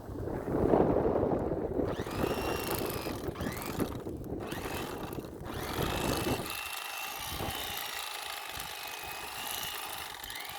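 Electric fillet knife running as it cuts a fillet from a crappie, with a thin high whine. A low rumble under it drops away about six and a half seconds in.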